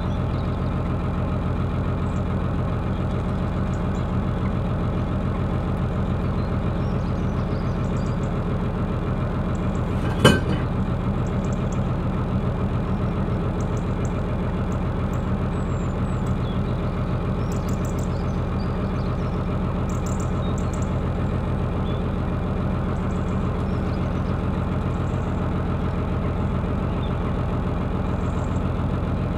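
A narrowboat's engine running steadily at cruising speed, an even low throb. About ten seconds in comes a single sharp knock.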